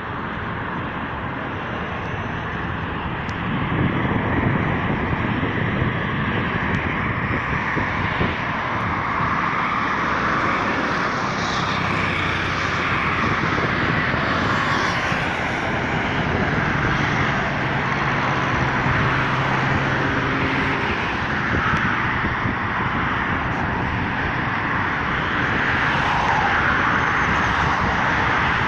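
Steady noise of road traffic driving across the bridge alongside the footway. Single vehicles swell and fade as they pass, the first about four seconds in.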